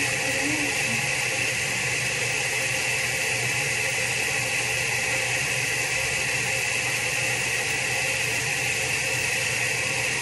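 Running water from a bathroom sink tap, a steady even hiss.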